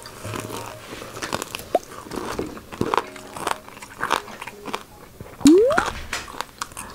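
Crispy fried chicken being bitten and chewed close to the microphone: repeated sharp crunches of the fried coating. Near the end a single short rising tone is the loudest sound.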